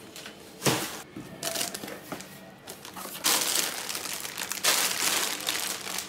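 A knock about a second in, then the plastic wrapping of instant noodle multipacks crinkling and rustling loudly as the packs are handled in a torn cardboard box.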